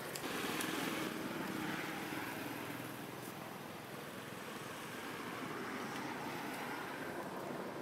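A motor vehicle going by: a steady rush of engine and road noise that swells just after the start and slowly fades over the next few seconds.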